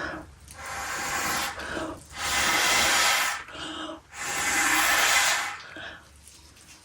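Three long rushes of blown air, each about a second, with short gaps between: air being blown across the wet pour paint to push it into waves.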